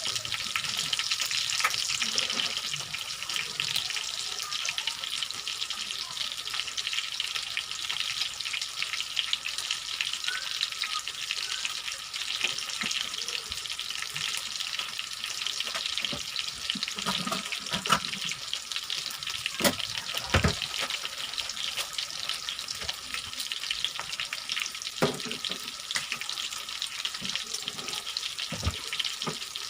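Food frying in hot oil in a pan: a steady sizzling crackle, with a few sharp knocks of a utensil against the pan.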